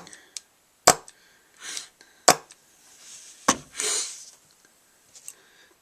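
Bob Long Closer paintball marker clicking three times, with short hissy sounds in between, while the bolt does not move: the marker is not cycling.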